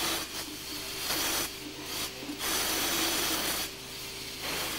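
Steam locomotive's Ramsbottom safety valve blowing off steam in several hissing bursts, each under about a second long, that cut in and out abruptly as the valve is being set before the engine's first run.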